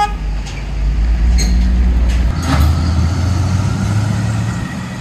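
Truck engine running and pulling away, its pitch rising twice as it accelerates.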